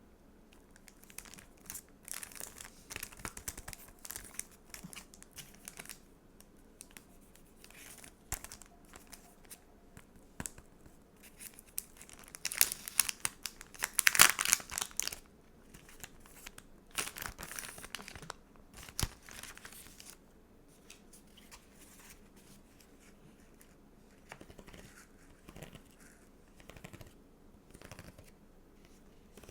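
Close-up handling of stickers and their plastic packaging: crinkling and tearing in uneven bursts, loudest about halfway through and quieter near the end.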